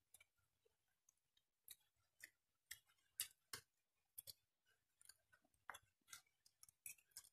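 Faint, scattered soft clicks and smacks of someone chewing a mouthful of food, about a dozen spread irregularly, otherwise near silence.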